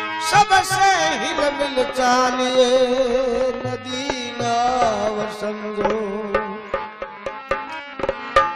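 Bhajan music: a harmonium playing a sustained reedy melody over quick hand-drum beats, with wavering sung vocal glides early and again about halfway through.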